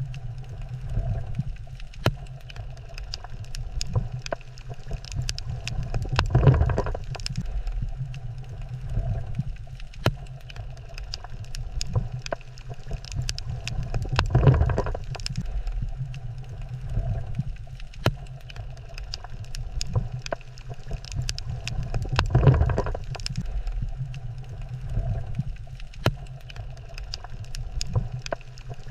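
Underwater coral reef ambience: a steady low rumble that swells about every eight seconds, with scattered sharp clicks and crackles throughout.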